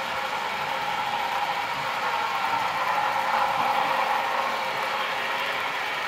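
Model steam locomotives (Broadway Limited Paragon3 Big Boy and Challenger) running around a layout: a steady mechanical running sound that swells a little louder around the middle, as if a locomotive passes closest.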